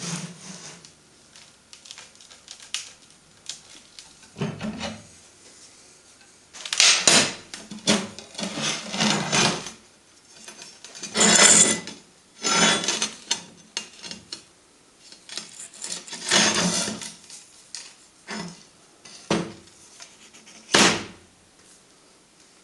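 Slotted steel handrail being bent cold over the edge of a steel bench: a series of irregular metal-on-metal scraping and grinding bursts as it is forced round, the loudest about 7, 11 and 16 seconds in, with a sharp last one near the end.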